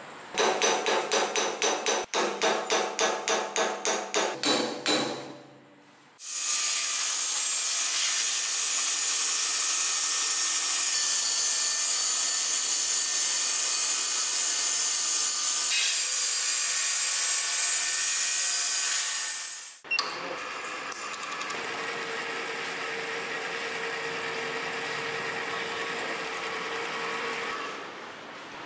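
A hammer striking metal about three times a second for five seconds, each blow ringing, setting brass pins in a steel fitting on an anvil. Then a belt grinder runs steadily, grinding a small steel part, for about fourteen seconds. It stops suddenly and a drill press takes over with a quieter steady whine, boring into a steel piece.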